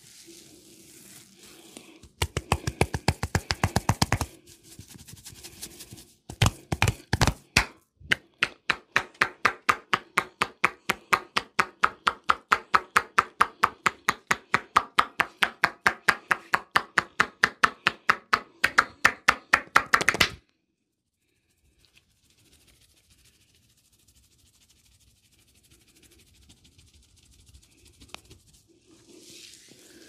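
A barber's hands striking a client in quick percussive massage strokes. Two short runs come first, then a long even run of about five strikes a second that stops abruptly about twenty seconds in, leaving only faint background.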